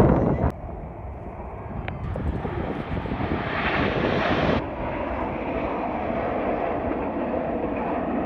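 Jet aircraft of a formation display team flying past, a steady jet engine rush that swells to a peak about four seconds in. It then steps down abruptly and continues steadily.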